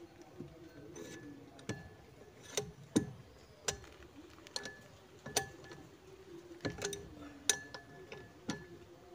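Irregular metallic clinks with a short ring, about one a second and sometimes two close together, from a steel rod handle knocking in a box spanner as it is turned to undo the centre bolt of a Kubota combine harvester's track roller.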